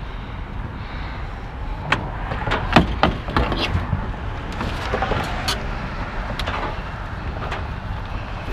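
Knocks and scraping clatter of a heavy commercial coffee appliance being slid out of a vehicle, in two clusters in the first and second halves, over a steady low rumble.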